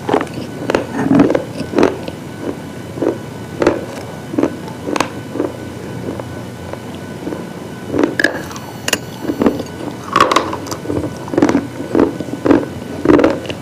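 Brittle slate or chalk-like cubes being crunched in a series of irregular, crisp crunches, roughly one or two a second, with a few sharper, brighter cracks in the middle.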